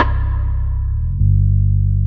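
Background music with deep, sustained bass notes. A sharp, plucked-sounding note rings out at the very start, and the bass moves to a new note a little past the middle.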